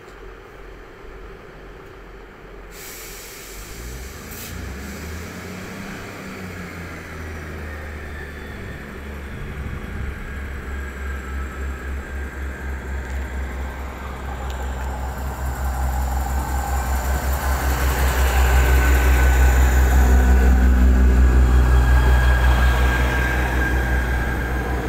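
Class 158 diesel multiple unit pulling away and passing close by, its underfloor diesel engines throbbing in a steady pulse that grows louder as it approaches. A whining note joins in the last third as the train draws alongside.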